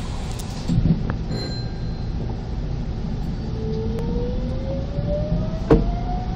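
Hanshin 'Jet Car' electric train accelerating hard, heard from the cab: a low running rumble with an electric drive whine that climbs steadily in pitch from about halfway through as the train gathers speed. A short knock comes about a second in and another near the end.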